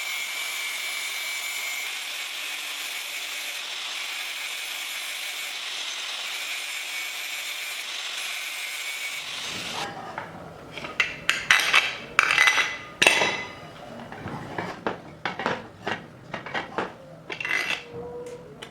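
A power tool running steadily with a hissing grinding sound, stopping abruptly about nine seconds in. It is followed by a string of irregular knocks and scrapes as things are handled.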